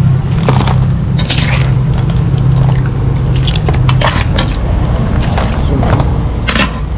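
Metal tongs and a ladle clinking and scraping against a wok and crab shells as boiled mud crabs and corn are scooped out, a string of sharp clinks over a steady low hum.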